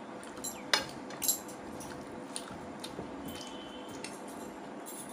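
Sharp clinks against a china plate as rice and curry are eaten by hand, the two loudest about a second in, then a few lighter ticks, over a steady low hum.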